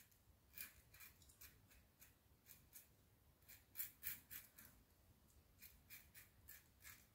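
Faint short scrapes of a Laugar skogsrå safety razor cutting through stubble, stroke after stroke at a few a second, irregularly spaced.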